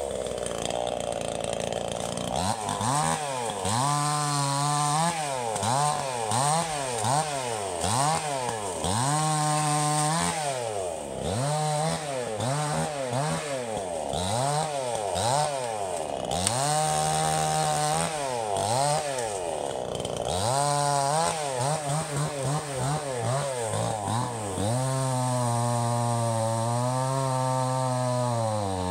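Chinese clone of a Stihl MS 270 two-stroke chainsaw cutting through a fallen tree trunk, its engine revving up and down about once a second, then held at high speed for several seconds near the end. Its owner finds the saw short of power.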